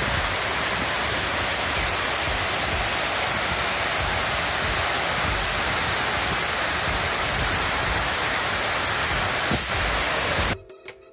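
Water pouring down the walls of the Houston Waterwall fountain: a loud, steady rush of falling water. It cuts off suddenly near the end.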